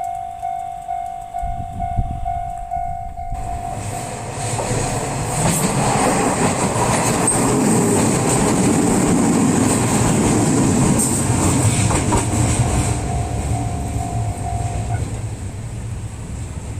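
A Japanese level-crossing warning bell rings about twice a second while a train passes over the crossing. The train's wheels and running gear build to a loud, steady rumble for several seconds in the middle and then fade. The bell stops about fifteen seconds in.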